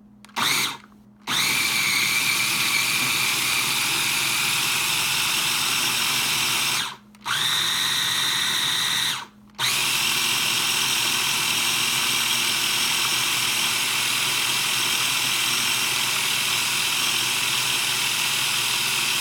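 Electric kitchen blender motor pureeing hummus: a short pulse, then steady running that stops briefly about seven seconds in and again about two seconds later before running on.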